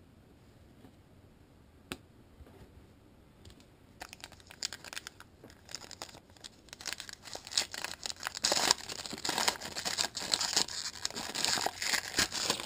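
Foil wrapper of a trading card pack crinkling and tearing as the pack is opened. The crackling starts about four seconds in after a quiet stretch with one click, and grows louder past the middle.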